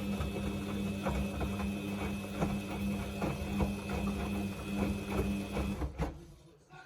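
Samsung washing machine running, its drum motor giving a steady hum and whine while the drum tumbles a blanket with irregular soft knocks. About six seconds in the motor stops with a click and the drum falls still, a pause in the wash tumbling.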